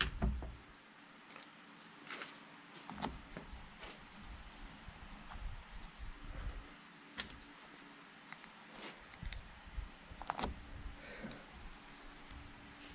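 Scattered light clicks and taps of hand tools and small parts being handled at an ATV handlebar brake master cylinder as its reservoir cap is refitted, with a louder knock at the very start. A steady high-pitched insect trill, typical of crickets, runs underneath.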